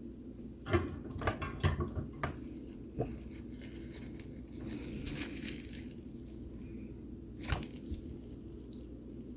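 Small sharp clicks and taps of tools being handled on a bench during hand soldering, bunched in the first couple of seconds with a single tap later, over a steady low hum.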